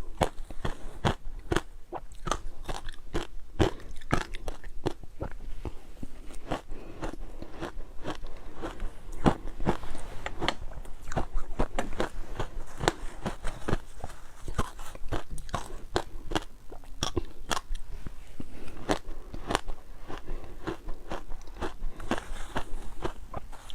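Ice being bitten and chewed close to the microphone: a dense, irregular run of sharp cracks and crunches as the cubes break between the teeth.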